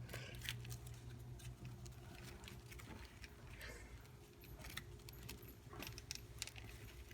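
A sheet of paper being handled and refolded: faint, scattered crinkles and crease rustles over a low steady hum.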